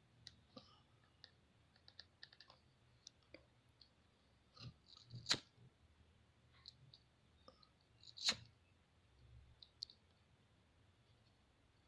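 Faint clicks and taps of small parts being handled on a work surface, with two louder knocks about five and eight seconds in.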